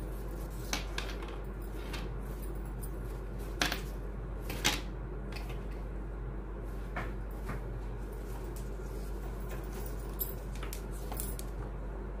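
Handling noise from the finished ribbon door hanging: a few light clicks and knocks, scattered and sharpest about four and a half seconds in, over a steady low hum.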